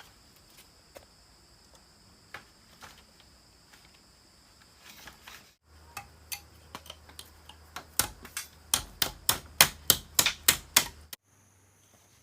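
A few scattered light clicks, then about halfway through a quick run of loud, sharp strikes, roughly four or five a second for about three seconds, which stops abruptly: a tool striking bamboo or wood.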